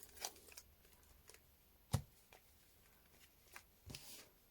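Photocards being laid down one by one on a table: a few faint taps and short slides of card on the surface, the sharpest tap about two seconds in.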